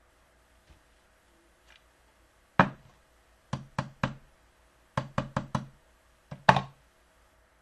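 A hand knocking on a hard surface in short groups: a single knock, then three quick ones, then four, then a closing double knock.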